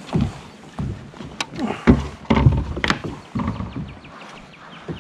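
Hollow knocks and thunks of a plastic fish measuring board and gear bumping against a plastic sit-on-top kayak, several sharp knocks in the first three seconds or so.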